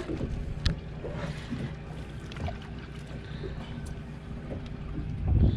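Boat engine idling steadily with wind on the microphone, with a few faint clicks and a short low thump near the end.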